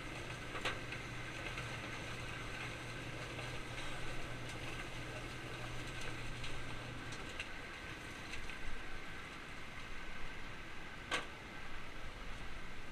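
A machine's steady low hum that stops about seven seconds in, over a faint background hiss, with two sharp clicks, one near the start and a louder one near the end.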